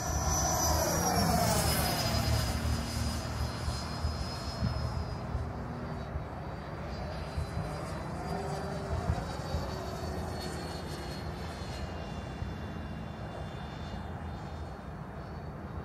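Electric ducted-fan whine from an RC foam Mirage jet making fast passes overhead, the pitch falling as it sweeps by near the start and again about halfway through. A low wind rumble sits underneath.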